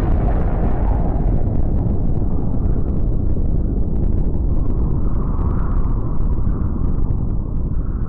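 End-card sound effect: a loud, steady, deep rumble with no tune or voice, easing off slightly near the end.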